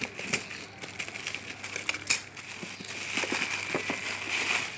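Crinkly packaging being wrestled open by hand: crackling and crinkling with scattered clicks, a sharp snap about two seconds in, then a denser stretch of rustling near the end.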